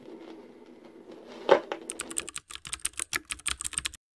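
A faint steady hum, then a single thump about one and a half seconds in as the stylus is set down on a spinning vinyl record on a Goodmans Revive suitcase turntable. A quick, irregular run of crackling clicks follows from its built-in speakers: surface crackle from the record's groove, then the sound cuts off abruptly.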